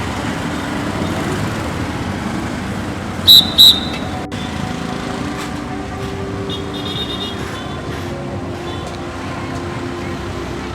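Steady city street traffic noise. About three seconds in come two short, very loud, high-pitched toots in quick succession, with a few fainter high tones later.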